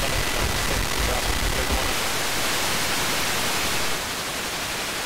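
FM radio receiver hiss from a wideband FM tuner set to weak or empty frequencies between stations: steady static with a faint whistle for the first two seconds. The hiss steps down slightly about four seconds in as the receiver is retuned.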